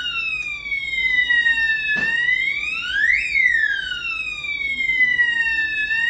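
Electronic fire alarm sounder wailing, set off in alarm mode: a tone that climbs quickly and then falls slowly, repeating about every four seconds, over a faint steady high tone. There is a sharp click about two seconds in.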